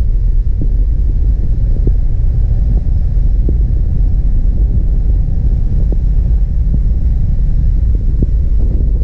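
C4 Corvette's V8 running with a steady, deep low rumble, with brief faint ticks or pops now and then.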